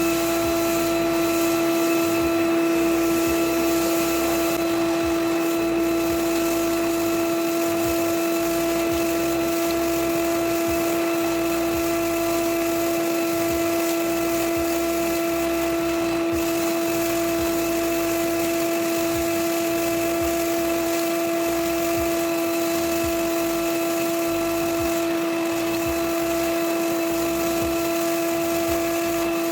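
Bagged vacuum cleaner running steadily through a DIY cyclone dust separator, sucking up wood shavings; a constant motor whine over a rushing hiss of air.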